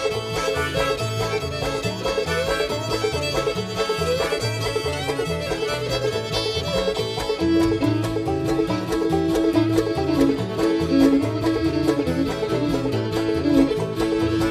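String band playing an instrumental break: banjo and fiddle over a steady plucked bass line, with a long held note coming in about halfway through.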